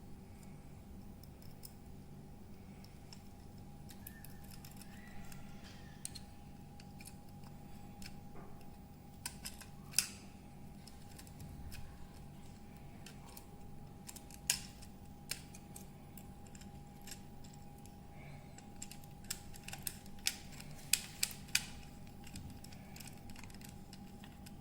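Scattered sharp, light clicks and snips from hand tools handling electrical wiring, several in quick succession near the end.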